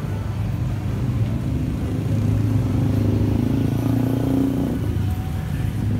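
Street traffic: car and motorbike engines running close by over a steady low hum, with one engine rising slightly in pitch in the middle and dropping away just before the five-second mark.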